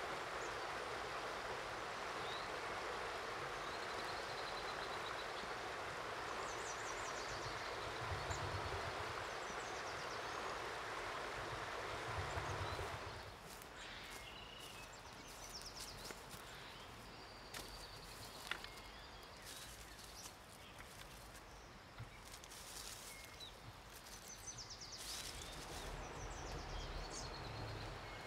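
Steady rush of a river with small birds chirping over it. About halfway through the water sound falls away sharply, leaving birdsong, a few sharp snaps and rustling, and the river rises again near the end.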